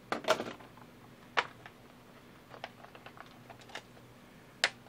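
Light clicks and knocks of hard tools and plastic items being handled and set down on a tabletop: a cluster of knocks at the start, a sharp knock about a second and a half in, scattered faint ticks, and another sharp knock near the end.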